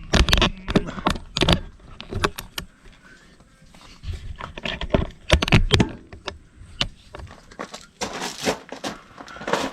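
Metal wrenches clinking and clattering: a run of sharp clicks and rattles in several bunches, with a quieter stretch in the middle.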